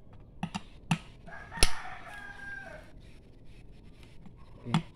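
A rooster crows once, a long call starting about a second and a half in. Around it come a few sharp metal clicks and knocks from a hand tool on a car starter motor's casing, the loudest a single knock just as the crow begins.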